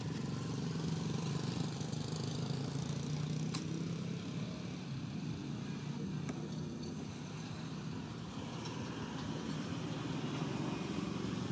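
An engine running steadily, heard as a low, even hum, with a couple of faint clicks.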